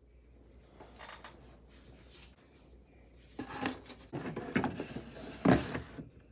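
Handling of a cardboard model-kit box: paper and plastic rustling and knocking as the instruction manual is pushed into the box among the runners, then a thump about five and a half seconds in as the lid goes on.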